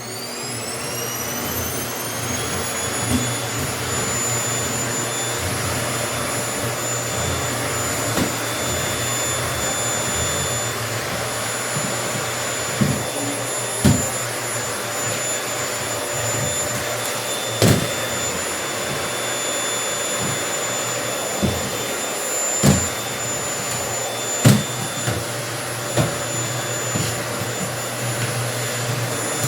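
Household vacuum cleaner motor spinning up, its whine rising in pitch over the first two seconds, then running steadily with a high whine. Several sharp knocks stand out over it in the second half.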